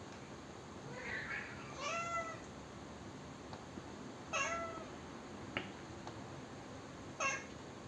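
Siamese kitten meowing in complaint: a soft call, then three short, clear meows a few seconds apart, the kind of protest he makes at hearing a sneeze. There is a single sharp click about midway.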